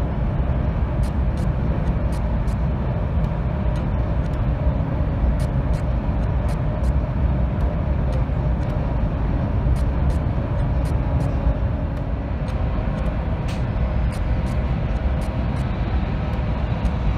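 Steady low rumble and rush of a CRH high-speed train running at speed, heard from inside the passenger cabin, with light ticks about once or twice a second.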